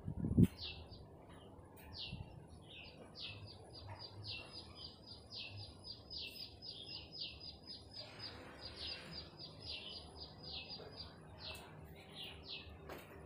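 A small bird calling with a steady series of short, high, down-slurred chirps, about three a second. A single low thump comes about half a second in.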